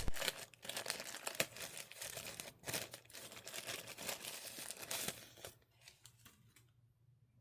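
Packaging crinkling and rustling as unboxed items are handled, in irregular crackles that die away about five and a half seconds in.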